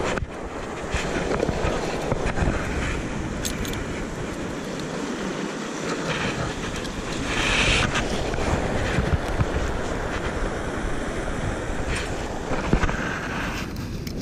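Sea surf breaking and washing over rocks, with wind buffeting the microphone.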